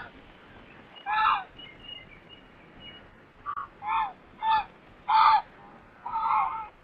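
Ducks quacking: about six short calls, spaced roughly a second apart, with a faint high chirping between the first calls.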